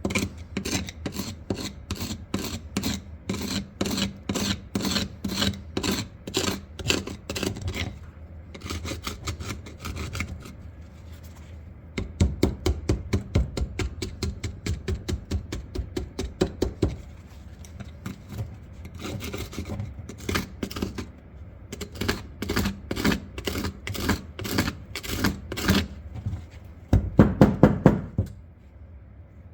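Screwdriver scraping loosened rust flakes off a shotgun's steel barrels and trigger guard after electrolysis, in quick repeated strokes of about three to four a second. The strokes come in several runs with short pauses between them, the loudest run near the end.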